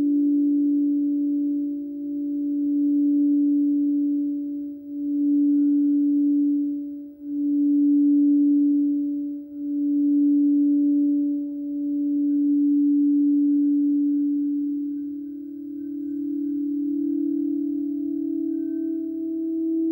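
Frosted crystal singing bowls ringing: a low, steady sustained tone that swells and dips every two to three seconds as it beats. About three-quarters of the way through, a higher tone rises over it as another bowl, the solar plexus bowl, is played with a mallet.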